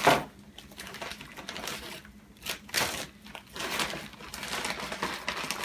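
Plastic bags crinkling and rustling in irregular bursts as frozen chicken breasts are pulled from the store bag and put into a gallon zip-top freezer bag, loudest right at the start.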